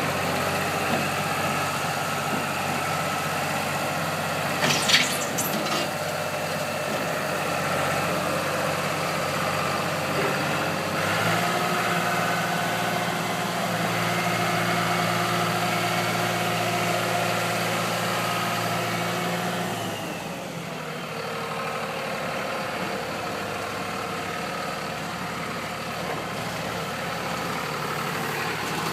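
Ford three-cylinder diesel of a New Holland LS180 skid steer running steadily, with a sharp clatter about five seconds in. The engine note rises about a third of the way through, then falls back and runs lower and quieter for the last third.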